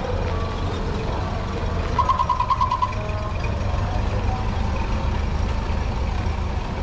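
Old cars passing slowly on a dirt street, a steady low rumble. About two seconds in comes a short, rapid pulsing tone lasting about a second.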